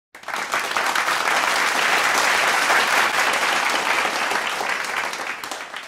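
Applause from a group, many hands clapping together, starting suddenly and tailing off near the end.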